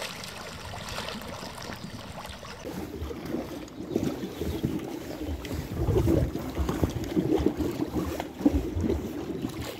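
Wind rumbling on the microphone, with small waves lapping at the water's edge; it gets louder and gustier about three seconds in.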